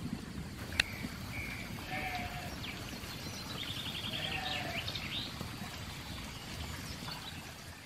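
Soay sheep bleating, two short calls a couple of seconds apart, as the flock runs. A single sharp click sounds about a second in.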